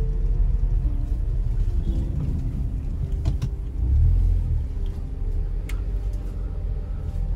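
Engine and road rumble of a Volkswagen car heard from inside the cabin while driving slowly. The low rumble swells louder about four seconds in as the car turns in towards the house.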